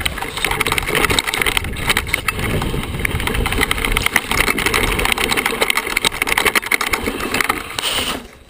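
Mountain bike descending a rocky downhill trail: tyres crunching over loose stones, and the bike rattling with a rapid, dense clatter of small knocks over a low rumble. The clatter dies down abruptly near the end.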